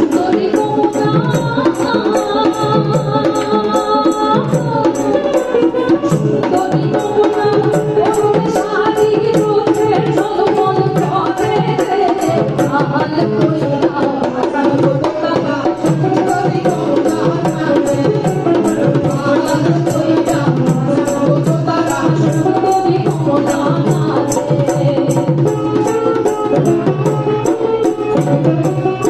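Live Bengali folk song: a woman sings over a laced double-headed barrel drum played by hand in a steady, even rhythm, with a strummed string instrument.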